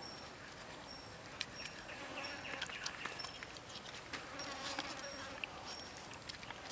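Forest insects buzzing, with short high chirps repeating every second or so. Soft scattered clicks of hands working a raw skinned frog on a wooden cutting board.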